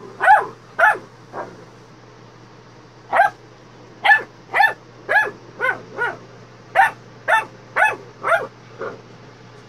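Small dog giving a run of short, sharp barks, about a dozen in all: three near the start, then a pause of about a second and a half, then a quicker string of barks.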